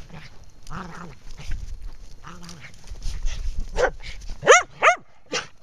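Small curly-coated dog scuffling through snow while nosing and biting a large horse ball toy, with a few soft vocal sounds and then two short, high-pitched yips close together about four and a half seconds in.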